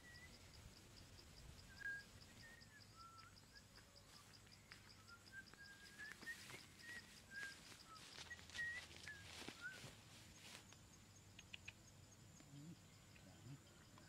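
Faint countryside ambience: short, scattered bird chirps and an insect's high, even pulsing at about five pulses a second. The pulsing stops about ten seconds in and a thin, steady high insect tone carries on.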